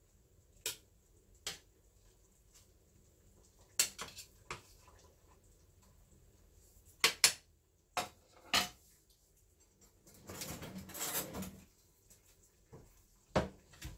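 Metal tongs knocking and clinking against a stainless steel saucepan while stirring ramyeon noodles, in about nine separate sharp strikes. A short stretch of rustling comes about ten seconds in.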